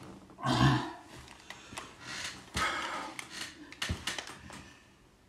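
A man's pained vocal reactions to the burn of a very hot chili-coated nut: a loud grunt about half a second in, then hissing, sniffling breaths through the mouth and nose with a few small clicks, dying away near the end.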